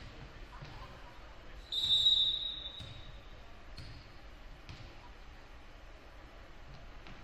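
A referee's whistle blows one high, clear blast lasting about a second, starting about two seconds in. Around it, a volleyball is bounced on the hardwood gym floor several times, giving dull thumps.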